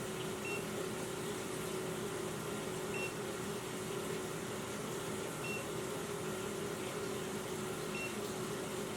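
Short, faint high-pitched electronic beeps, four of them about two and a half seconds apart, over a steady hum: the beeping of a carbon monoxide detector.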